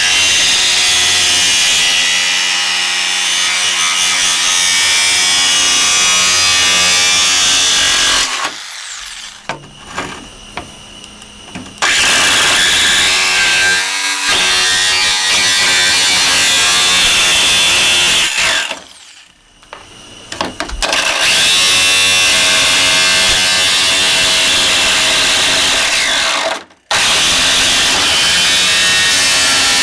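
Corded Ryobi jigsaw with a metal-cutting blade sawing through a car's sheet-metal hood: a loud, steady buzz that stops for a few seconds about eight seconds in, again near twenty seconds, and for a moment near the end.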